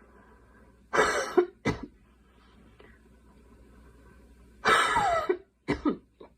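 A girl coughing in two bouts about four seconds apart. Each bout is a harsh cough followed by one or two shorter coughs.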